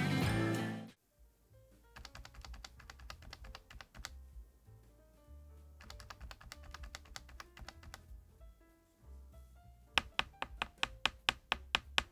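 Typing on a DAREU EK75PRO mechanical keyboard with Dream HiFi linear switches in a gasket-mounted case, in three bursts of keystrokes. The last burst, near the end, is the loudest and runs at about seven keystrokes a second. Music cuts off about a second in, and soft music carries on underneath the typing.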